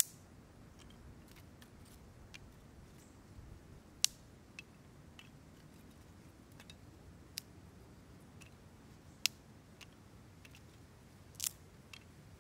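Dry driftwood sticks clicking and tapping against one another as they are laid by hand into a fire lay: sharp single ticks every second or two, a few louder than the rest, over a faint low background hush.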